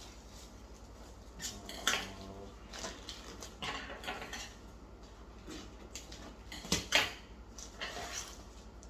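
A shipping package being handled and opened: irregular rustling, scraping and clattering, with a sharp knock about two seconds in and a louder one near seven seconds.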